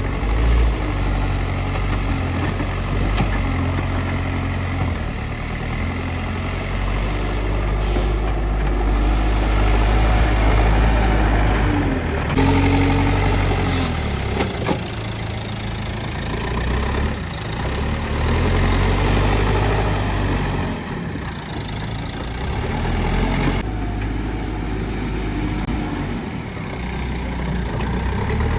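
Backhoe loader's diesel engine running under work, its engine speed rising and falling every few seconds as the machine mixes material.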